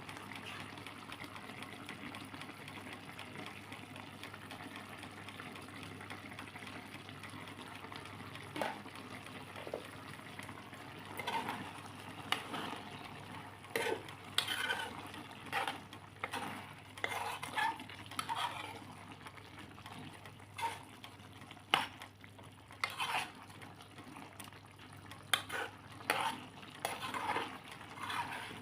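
A pan of chicken Bicol express cooking with a steady hiss, and from about eleven seconds in a cooking utensil stirring it, with irregular scrapes and clinks against the pan.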